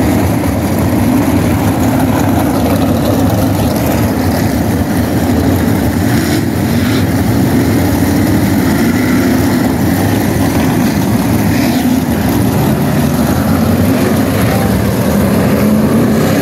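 Winged sprint car engines running together in a steady, loud drone, the pitch wavering slightly with no sharp revs or pass-bys.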